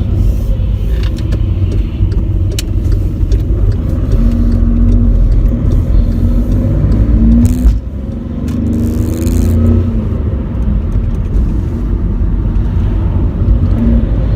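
Volkswagen Polo 1.2 TDI Bluemotion's three-cylinder turbodiesel pulling under acceleration, its pitch climbing steadily. The sound drops off suddenly about eight seconds in, then climbs again.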